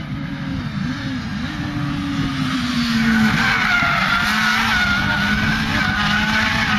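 Rage R200RT buggy drifting, heard from trackside: its engine note rises and falls, then from about three seconds in the tyres squeal in long, wavering tones as it slides through the corner and the sound gets louder.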